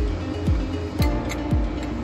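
Background music with a steady, deep kick-drum beat, about two beats a second, over held synth notes.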